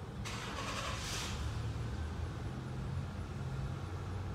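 Low, steady rumble of a vehicle engine, with a brief hiss about a second in.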